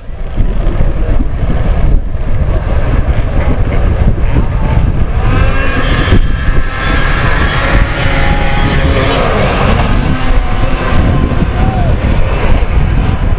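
Snowmobile engines running as the sleds pull away from the start line and climb the hill, with a loud, uneven low rumble throughout.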